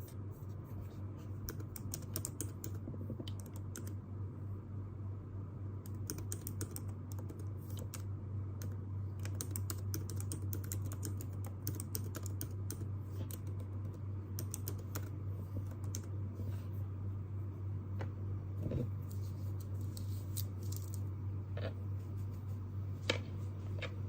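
Computer keyboard typing: irregular runs of short key clicks over a steady low hum.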